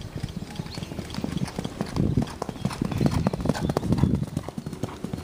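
Ridden horse cantering on grass: a steady, continuous run of hoof beats thudding on the turf.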